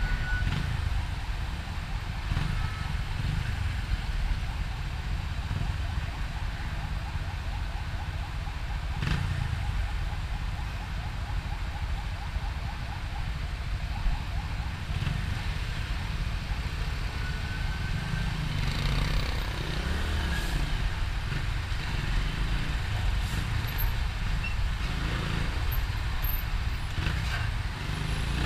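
Motorcycle on the move: a steady low rumble of wind on the microphone mixed with engine noise, with a fine rapid ticking through roughly the first half and passing traffic.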